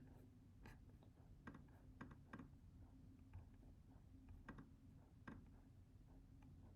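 Near silence: room tone with a low hum, broken by faint, irregular clicks of a computer mouse and keyboard.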